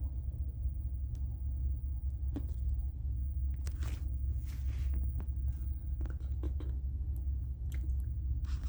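Steady low rumble aboard a cruise liner at sea, with scattered faint clicks and rustles from the phone being handled.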